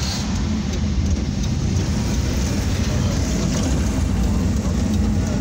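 Motor scooter engine running steadily while riding along a road, with wind rushing over the microphone.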